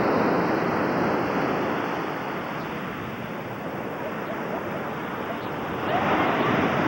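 Ocean surf washing onto the beach: a steady rush of noise that swells at the start and again about six seconds in.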